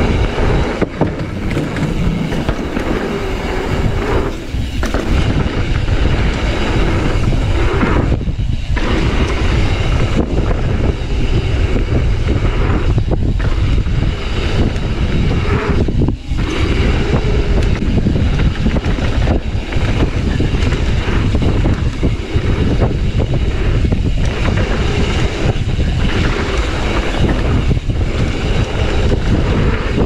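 Mountain bike riding down a dirt trail: a loud, steady rumble and rattle of tyres, chain and frame over rough ground.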